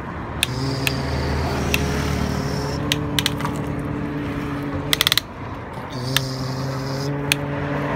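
Plastic toy excavator being handled: sharp clicks from its boom and bucket joints, with a quick ratcheting run of clicks about five seconds in. A steady low hum runs underneath and drops out twice for a moment.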